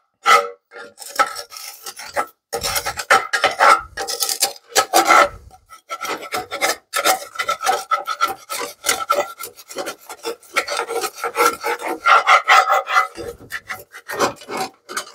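Teak wooden spatula scraping stuck-on cheese and burnt residue out of a cast iron skillet in quick, irregular strokes with short pauses.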